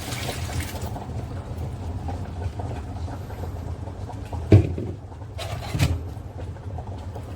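Tineco iFloor 5 Steam wet-dry vacuum mop running over a hard floor: a steady motor hum with its roller, and two knocks about four and a half and six seconds in.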